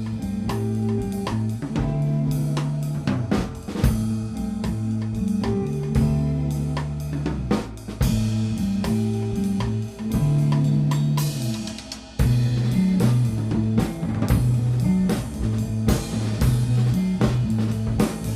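Instrumental band playing: a drum kit with snare and bass drum under a bass guitar line and electric guitar, in a rough live mix. About twelve seconds in the music drops briefly, then comes back with a choppier, more rhythmic bass pattern.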